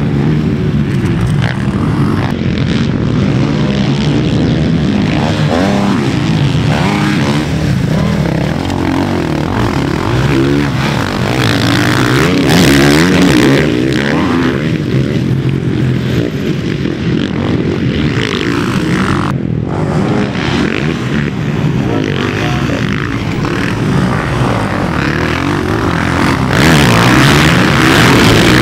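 Motocross dirt bike engines revving up and down through the gears, several pitches overlapping and sliding at once.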